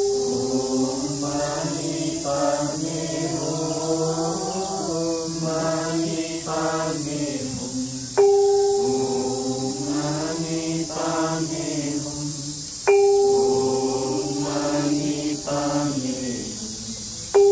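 A group of voices chanting together in unison, with a bell-like tone struck three times, about every four and a half seconds, each strike ringing on and fading under the chant.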